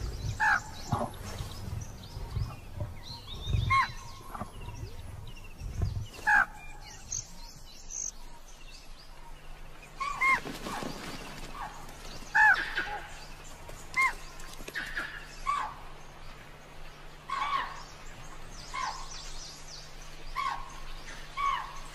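Birds calling repeatedly in wild woodland: short arching chirps, one every second or so, over a steady low hum. A few low thuds come in the first few seconds.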